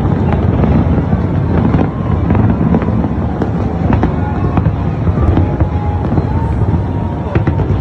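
Fireworks display going off without a break: overlapping deep booms with many sharp bangs and crackles on top.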